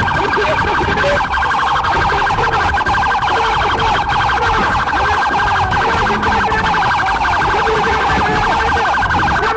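Police car siren sounding loudly in a fast warble, its pitch swinging up and down many times a second.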